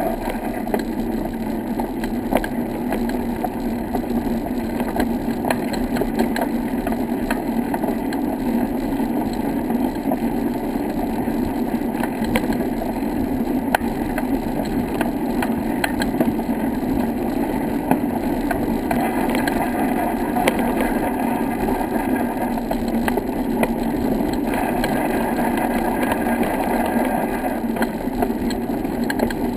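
Steady rolling rumble and rattle of a vehicle riding over a brick-paved path, with a low steady hum and many small knocks from the bumps in the paving.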